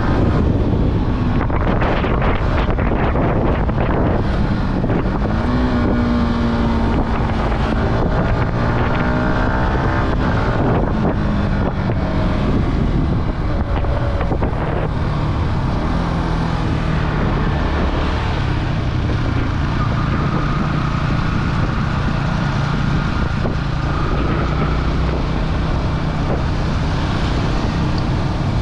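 Yamaha R15's single-cylinder four-stroke engine running on the road, its pitch rising and falling with throttle and gear changes during the first ten seconds or so, then holding steadier. Wind rushes over the microphone throughout.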